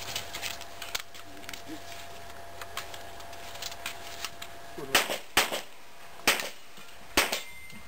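Four handgun shots, starting about five seconds in, the first two close together and the next two about a second apart each. Before them there are only faint scattered clicks.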